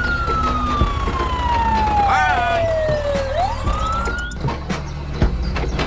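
A siren-like whistling tone slides slowly down in pitch for about three seconds, swoops back up and cuts off, over a steady low hum. Scattered clicks and knocks follow near the end.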